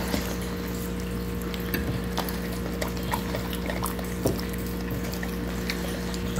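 A dog licking and chewing pizza scraps off a plate: many short wet clicks and smacks. Under it runs a steady low hum.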